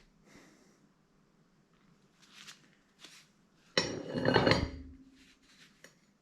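Metal parts clinking and clattering as a motorcycle rear sprocket is handled and set on the wheel, with one loud clatter about four seconds in that rings briefly.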